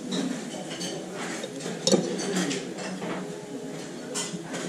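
Metal chopsticks and tableware clinking against dishes while eating, with a few sharp clicks, the loudest about two seconds in and another near the end, over a low murmur.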